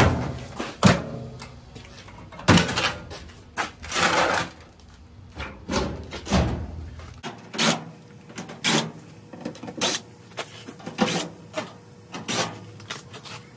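Irregular clicks, knocks and clattering of the Samsung dryer's sheet-metal panels, wiring connectors and a hand tool being handled while the dryer is taken apart.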